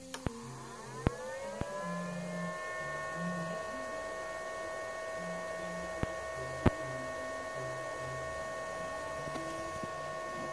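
A 4 HP three-phase lathe motor fed by a Huanyang VFD spinning up: an electric whine rises in pitch for about two seconds, then holds steady. A few sharp clicks or knocks come through it, the loudest about six and a half seconds in.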